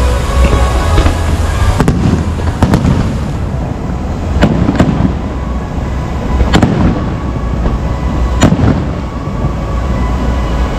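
Fireworks going off: about five sharp bangs spaced a second or two apart, each trailing off in a rumble, with music playing underneath.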